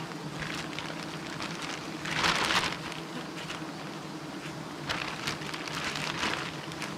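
Swarm of giant honey bees buzzing as a steady hum around their opened nest. A louder rustle, likely the plastic bag being handled, comes about two seconds in, with smaller rustles later.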